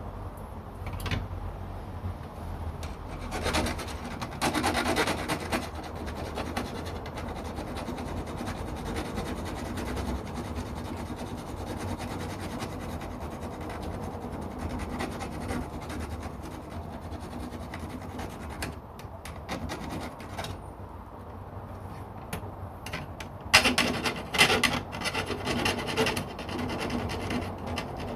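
Small hand hacksaw cutting through the metal grill grate of a UCO Flatpack fire pit, a continuous back-and-forth rasping that grows louder and heavier for the last few seconds.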